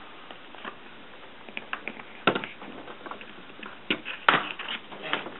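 Plastic screen bezel of an HP Envy dv6 laptop being pried off: a few sharp clicks and snaps as its clips let go, the loudest about four seconds in, with smaller ticks between.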